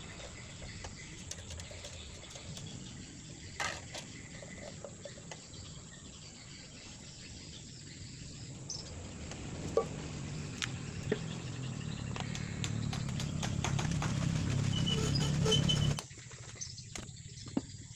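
Outdoor ambience with bird chirps and insects, with a few light clinks of a stirring stick against metal paint tins. A low rumble swells through the second half and cuts off suddenly near the end.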